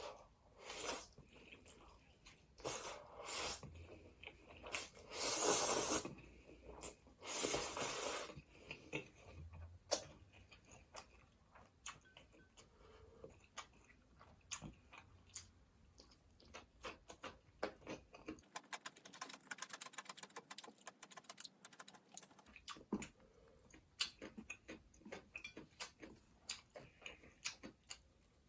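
Close-miked eating sounds: a person chewing and biting food, with several loud, noisy bursts in the first eight seconds, then a long run of small wet chewing clicks.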